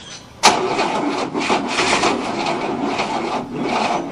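Starter motor cranking a 1967 Cadillac V8 slowly without it firing. A sharp click about half a second in is followed by a rhythmic rasping of about three strokes a second. The slow cranking is blamed on a weak battery.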